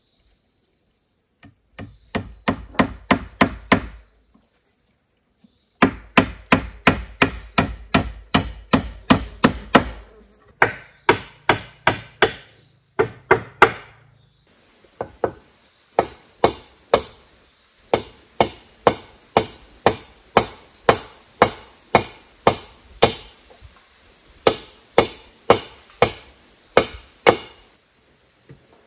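Hammer striking wood in quick runs of about four blows a second, with short pauses between runs, typical of nails being driven into timber.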